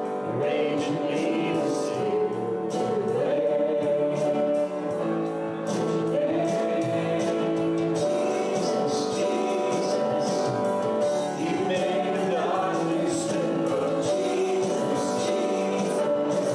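Choir singing a gospel worship song with musical accompaniment and a steady percussion beat.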